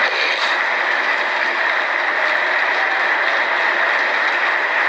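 Many voices shouting slogans at once in a legislative chamber, merging into a steady, loud crowd noise.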